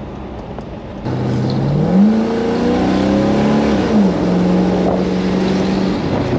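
A vehicle engine pulling hard, coming in suddenly about a second in. Its pitch jumps up about two seconds in, holds steady, then drops a step about four seconds in.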